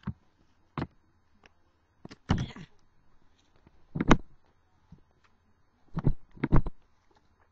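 A handful of separate short knocks and rustles with pauses between them, the sound of things being handled and set down, such as papers being gathered up.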